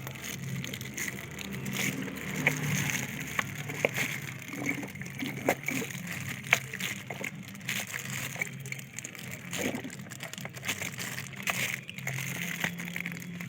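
Liquid sloshing and trickling as a car battery's cells are filled with battery acid, with scattered small clicks and knocks of handling.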